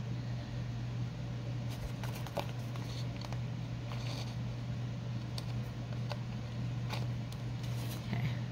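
Scissors snipping a sheet of printed book-page paper: short crisp cuts and paper rustles, about a dozen, scattered irregularly over a steady low hum.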